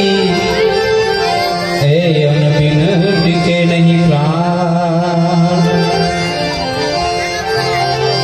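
Harmonium and tabla playing an instrumental interlude between the verses of a devotional song. The harmonium holds sustained notes, and a wavering melodic line runs over them in the middle.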